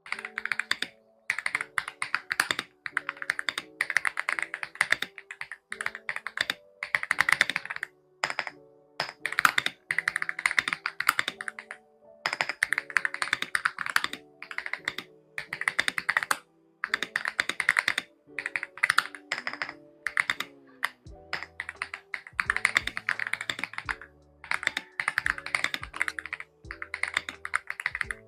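Typing on an Aula F75 Pro mechanical keyboard with Leobog Reaper switches: rapid runs of key clacks in bursts of a second or two, with short pauses between them. Background music plays underneath, and a bass line joins about two-thirds of the way through.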